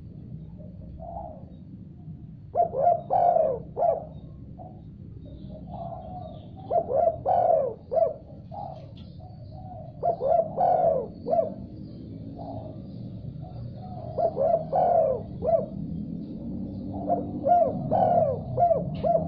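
Spotted dove (tekukur) cooing its rhythmic multi-note phrase in about five bouts a few seconds apart, over a steady low background rumble.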